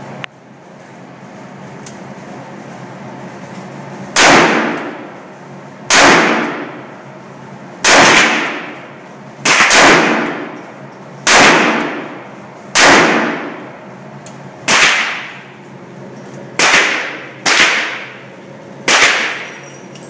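Revolver gunshots, about eleven in all, fired every one to two seconds from about four seconds in. Each shot is loud and followed by a long echoing decay.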